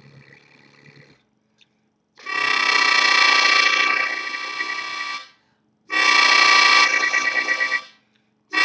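Diatonic harmonica played in chords: two long blasts, about three seconds and then two seconds long, with a third starting near the end. It is a chugging exercise of breathed chords.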